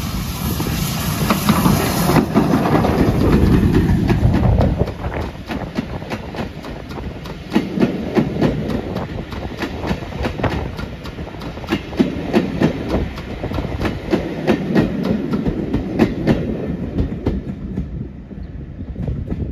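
BR Standard Class 5 steam locomotive 73082 passing close by with a heavy rush of sound for the first few seconds. Its train of carriages then clatters past, wheels clicking over the rail joints in a clickety-clack rhythm that fades as the train draws away near the end.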